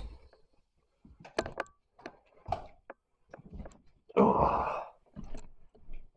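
Footsteps and scattered knocks in an empty room, short irregular thuds and clicks, with one louder half-second swish about four seconds in.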